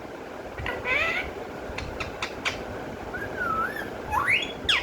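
Pet parrot calling and whistling: a short chattering call about a second in, a few clicks, a wavering whistle near the middle, then quick rising and falling whistles near the end.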